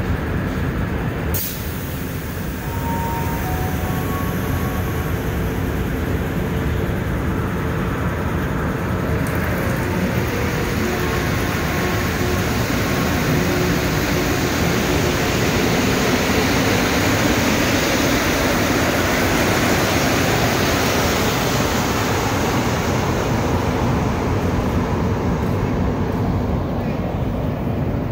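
Rubber-tyred Montreal metro train pulling out of the station. A sharp click comes about a second in, then a few short tones, then the train's running noise builds and stays loud as the cars pass, easing slightly near the end.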